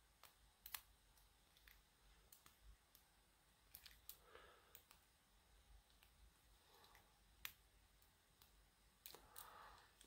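Faint, scattered metallic ticks of a shallow hook pick probing the pin tumblers of a laminated steel padlock held under tension, a handful of sharp clicks spread irregularly over several seconds.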